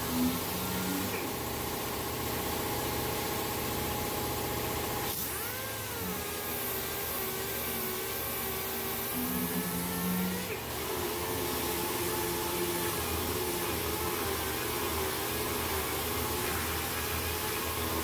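Air-powered random orbital sander running with an 80-grit disc against the bare metal body of a wood stove, a steady whine and hiss with the scrubbing of abrasive on metal, knocking back weld grind marks. About five seconds in the whine steps up in pitch, then drops back about five seconds later.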